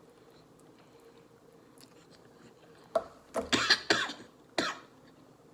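A person coughing in a quick fit of several short coughs about three seconds in, while eating very spicy noodles.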